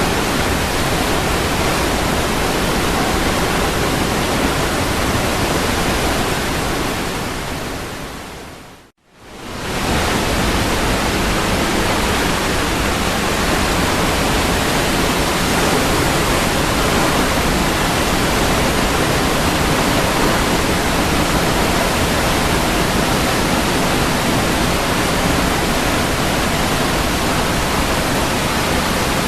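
Waterfall: a steady rush of falling water. About seven seconds in it fades down, drops to silence briefly about nine seconds in, and swells straight back to the same steady rush.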